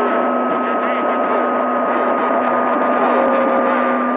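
CB radio receiver hissing with open-channel static, a thin steady whistle and a low hum held through it.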